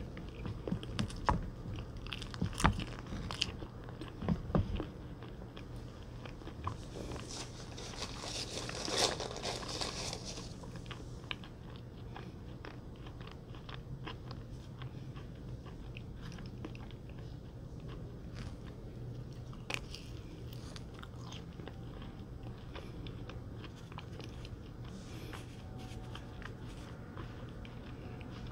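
A person biting and chewing a banana-shaped treat with a yellow coating and white centre. There are crisp cracks in the first few seconds and a louder crunchy burst about eight to ten seconds in, then quieter chewing.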